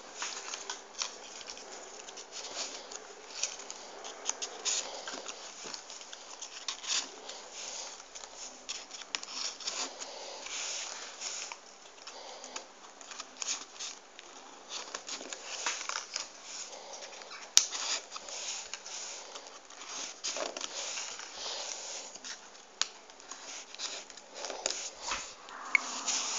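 Folded paper units of 3D origami rustling and crinkling as they are pushed by hand into a paper structure, with irregular small clicks and taps, and one sharper click about two-thirds of the way through.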